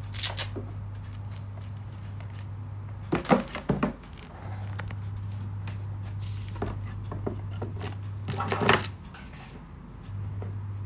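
Rustling and clicking of a laptop power adapter's cable and brick being handled and plugged into the laptop, in three short bursts: near the start, about three seconds in and near the end. A steady low hum runs beneath and cuts out a few times.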